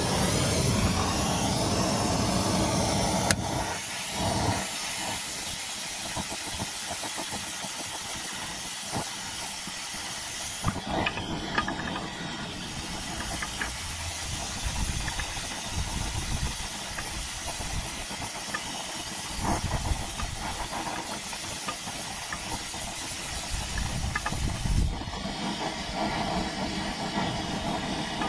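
Gas torch flame hissing steadily as it heats a rusted exhaust flange stud at the catalytic converter to free it. The hiss is louder for the first few seconds, then settles lower, with a few light clicks.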